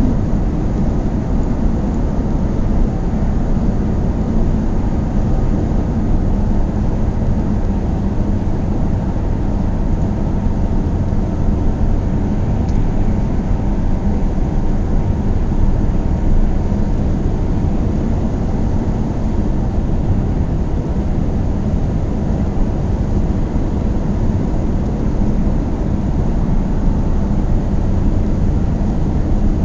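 A car being driven, its engine and tyre noise making a steady low rumble that holds even throughout.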